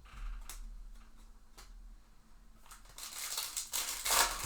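Handling of trading cards and packaging: a few light clicks, then a couple of seconds of loud crinkling as a foil card-pack wrapper is torn open and pulled apart.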